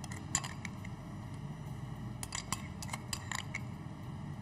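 A metal spoon clinking and scraping against a glass bowl as ghee is scooped out into a frying pan: a few light clicks, most of them bunched from about two seconds in, over a low steady hum.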